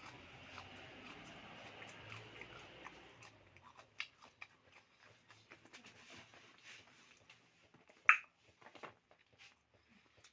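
Close-up chewing and biting of food, with scattered short wet clicks and smacks of the mouth and one sharp, loud smack about eight seconds in.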